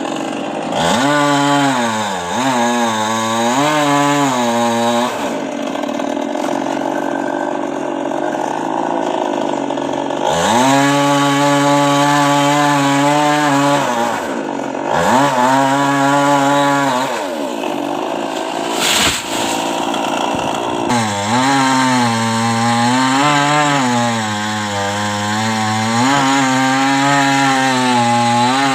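Chainsaw cutting into a coconut palm trunk, its engine revved up to high speed and dropping back several times, the pitch wavering under load. A brief sharp crack is heard about two-thirds of the way through.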